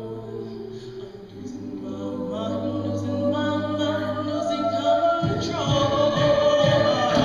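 A cappella vocal ensemble singing held chords that swell steadily louder; about five seconds in the chord shifts and a low rhythmic pulse joins underneath.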